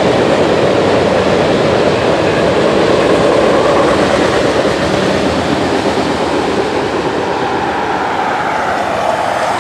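Freight train of centerbeam flatcars loaded with lumber rolling past: the steady noise of wheels on rail, growing a little fainter near the end.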